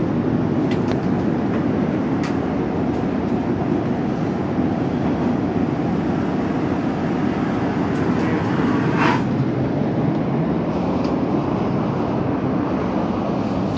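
Steady cabin noise inside an Airbus A380: an even rush of air and engine noise, with a few faint clicks.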